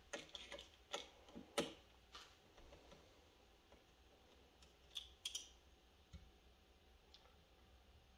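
Faint clicks and light taps from adjusting the length setting of a drill-driven rifle case trimmer: several in the first couple of seconds, a pair about five seconds in, then near silence.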